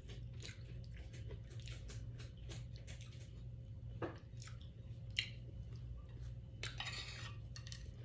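Chopsticks clicking and scraping against a plate as the last bits of rice are picked up, with close-miked chewing, over a steady low hum. A sharper click comes about five seconds in and a longer scrape near seven seconds.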